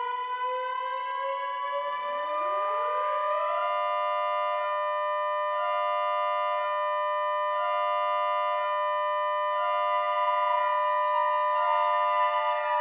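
Synthesized outdoor tornado warning sirens (Federal Signal 2001-SRN, Model 5 and 3T22) sounding together: steady alert tones, with another siren winding up about two seconds in. From about four seconds a hi-lo tone alternates about once a second, and near the end one of the steady tones begins to wind down.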